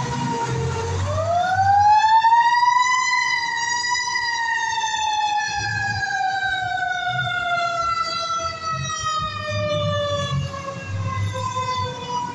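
A fire engine's mechanical Q-siren winding up steeply to a high wail over about three seconds, then slowly coasting down in pitch. The truck's engine rumbles low underneath.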